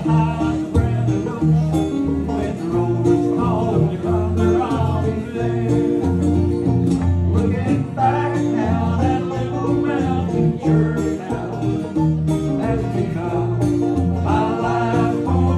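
Small live bluegrass band playing: fiddle, acoustic guitar and plucked strings over a walking electric bass line.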